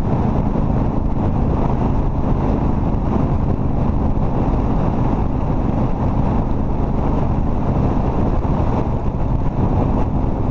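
Cruiser motorcycle riding at a steady cruising speed, the engine's even drone mixed with heavy wind rush on the microphone.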